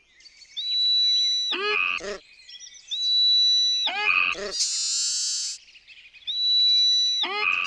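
Sound effects for an animated title, with one cycle heard three times: a steady high whistle-like tone held for about a second, then a quick falling, croaking warble. A burst of hiss sounds about halfway through.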